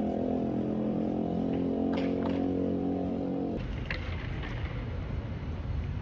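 A motor vehicle engine running steadily close by, stopping abruptly about three and a half seconds in. After that there is a low outdoor rumble.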